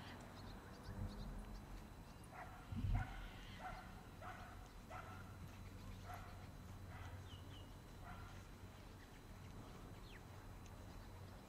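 A dog barking over and over, about ten short barks in quick succession over some six seconds. There is a brief low thump about three seconds in.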